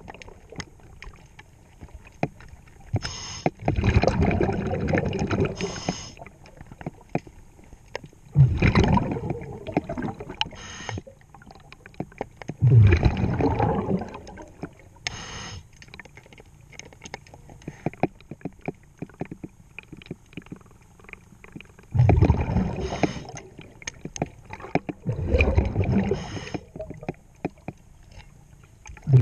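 A diver breathing through a regulator underwater: about five rushes of exhaled bubbles, each lasting a couple of seconds, with a brief sharp hiss from the regulator on each inhale. There is a quieter spell of several seconds past the middle.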